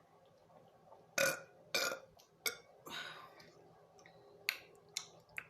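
A person burping: a string of short, loud burps starting about a second in, the first two the loudest, followed by a few shorter, sharper sounds near the end.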